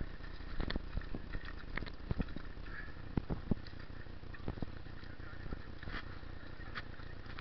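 Steady low rumble with scattered clicks and knocks throughout, thickest in the first half: rubbing and handling noise of an action camera in its waterproof case.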